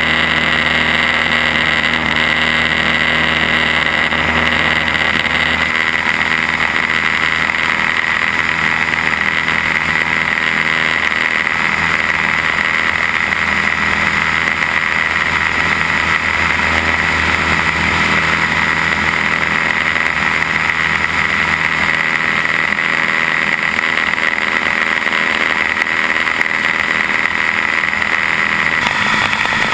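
Cessna 172's piston engine and propeller running steadily at power, heard from outside the cabin with wind rushing over the microphone.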